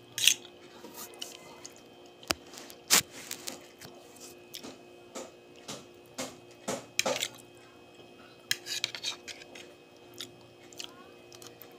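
A fork clinking and scraping against a plate, with irregular sharp clicks as spaghetti carbonara is twirled and lifted, and chewing in between.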